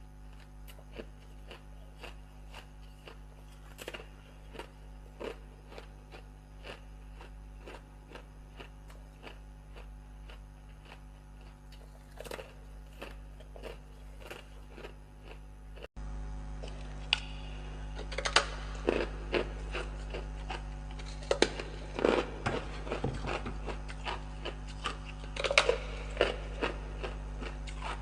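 Ice being bitten and chewed close to the microphone: a run of sharp crunches, louder and denser in the second half.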